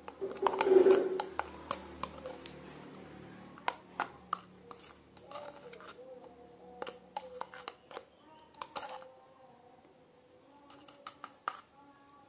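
A metal spoon stirring a wet garlic paste in a thin plastic cup, scraping and clicking irregularly against the cup's sides and bottom, with a louder rub about a second in.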